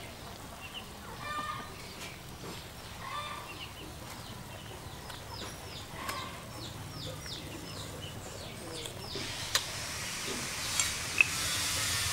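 Chickens clucking every couple of seconds, with a quick run of high chirps about five seconds in. From about nine seconds a hiss from the steaming wok of soup rises, with a few sharp clicks.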